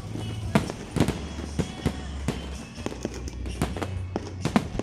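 Aerial fireworks bursting during a competition display: a rapid series of sharp bangs, about seven of them loud, over a continuous low rumble.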